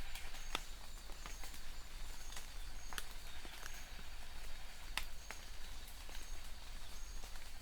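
Steady rain hiss with irregular louder drops tapping, and faint short high chirps repeating every second or so.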